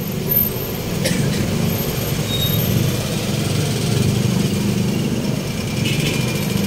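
Steady low rumble of passing street traffic, with a single short click about a second in.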